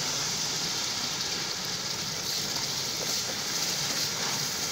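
Onion-tomato masala with oil and a little water sizzling steadily in a pot on the stove, an even hiss.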